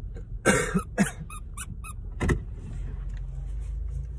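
Squeaky plush dog toy being squeezed: three loud squeaks about half a second, one second and two and a quarter seconds in, with smaller squeaks between them, over a steady low car hum.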